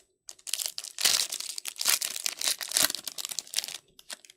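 Crinkling and tearing of a trading-card pack wrapper being ripped open, with about three seconds of dense rustling.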